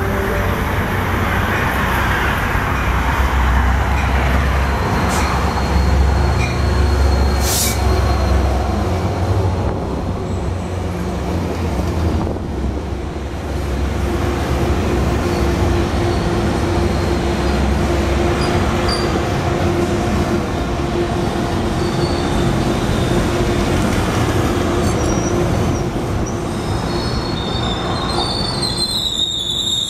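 Metrolink commuter train with bilevel coaches passing close by on curved track, with a steady low rumble of wheels on rail. A thin, high-pitched wheel squeal comes in near the end.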